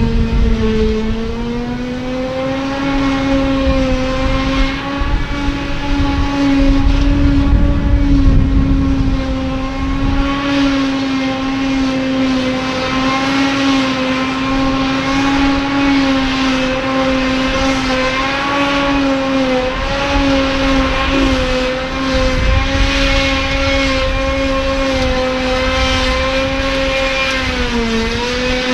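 Claas Jaguar 940 forage harvester chopping grass: a steady high mechanical whine over the engine running under load. The pitch dips briefly about a second in, again around twenty seconds in, and near the end.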